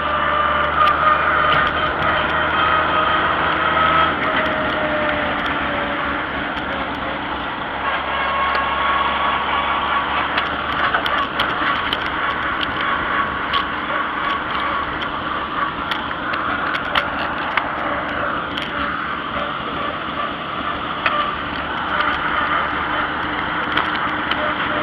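Older farm tractor's engine running steadily under way, with frequent small rattles and knocks from the machine as it travels.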